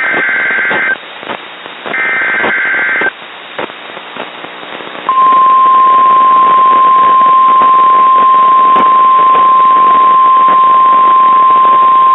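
NOAA Weather Radio Emergency Alert System signal: two one-second bursts of the screechy SAME digital header, then about five seconds in the steady single-pitch 1050 Hz warning alarm tone starts and holds, over radio hiss. This sequence marks the start of a new warning broadcast.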